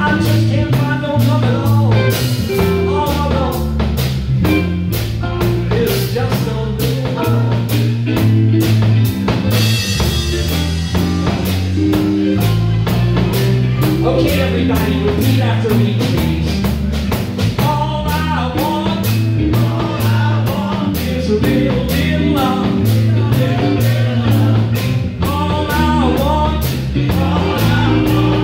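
Live band playing a blues-rock number: electric guitars, bass guitar, drum kit on a steady beat and Hammond organ, with a singer's voice coming in over it in the second half.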